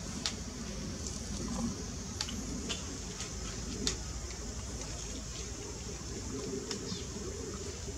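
Steady outdoor background noise: an even high hiss over a low rumble, with scattered short sharp clicks and chirps.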